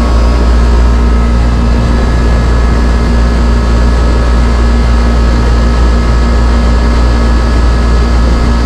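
Residential air-conditioning condenser running: the compressor and condenser fan motor make a steady, loud hum with a steady low tone. The compressor, fitted with a new hard start kit and capacitor, is drawing about 16 amps against a rated 17.1, close to its limit.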